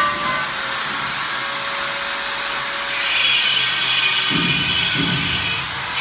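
A handheld angle grinder with an abrasive cut-off wheel runs free off the work with a steady motor whine. About three seconds in, the wheel bites into an iron bar and the sound turns louder and harsher, with a rasping grind as it cuts.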